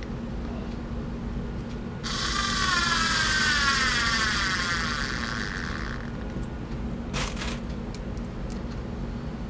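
Cordless screwdriver's small electric motor running for about four seconds, its whine falling in pitch as it slows under load while starting a screw into wood; it runs on weak NiCad batteries charged from a coin cell and lacks the torque to drive the screw home. A short noisy burst follows about a second later.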